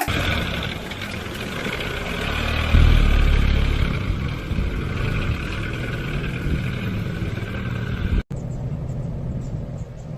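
A vehicle driving: a steady engine rumble with road noise. The low rumble grows heavier about three seconds in, and the sound drops out for an instant about eight seconds in before carrying on.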